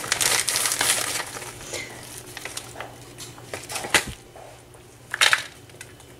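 Plastic bag crinkling as crushed Oreo cookies are shaken out of it into a bowl of ice cream, fading after about a second. Then scattered light clicks, a knock about four seconds in, and a brief louder scrape of a spoon in the bowl about five seconds in.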